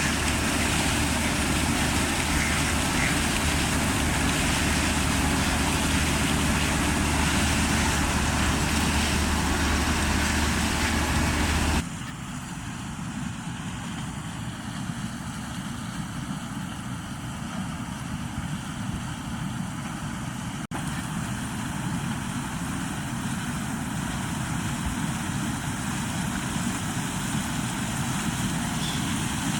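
Combine harvester working, its engine and threshing machinery running steadily with a deep hum. Partway through, the sound cuts abruptly to a quieter, thinner machine noise.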